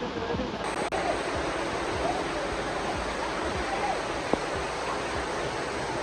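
Water of the Siruvani waterfall pouring down close to the microphone in a steady, dense rush, with a single sharp click about four seconds in.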